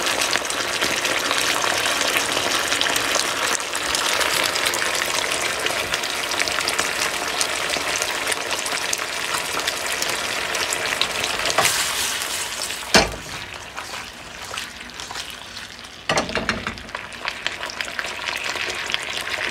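Tofu, peppers and onion sizzling and crackling in a chilli sauce in a frying pan. About two-thirds of the way through there is a single sharp knock, the loudest sound; the sizzling then drops for a few seconds and comes back.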